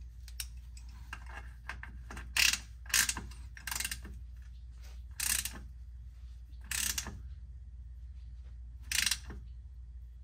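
Hand ratchet clicking in about six short bursts a second or two apart as it tightens the drain plug on a transfer case.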